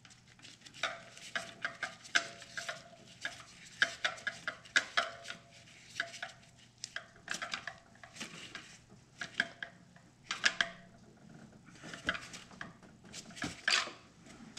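Irregular light metallic clinks and clicks, some with a brief ring, from a spark plug socket on an extension and a ratchet being worked down the plug well to install a new spark plug.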